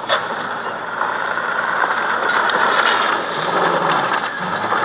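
Old wreck-race cars driving hard on a loose dirt and gravel track: engine noise mixed with a dense rush of tyres on gravel, with a few sharp knocks.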